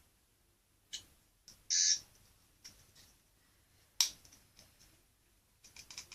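Plastic clicks and taps from handling a toy sonic screwdriver, with one short, high, hissing burst a little under two seconds in.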